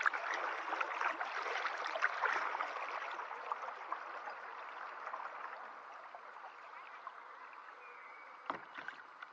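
Water gurgling and dripping around a kayak as it is paddled, full of small splashes and drips. It fades gradually from about three seconds in, and a sharp knock comes near the end.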